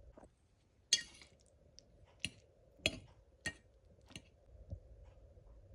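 Five light, sharp clicks of hard objects knocking together, spread over about three seconds, the first the loudest.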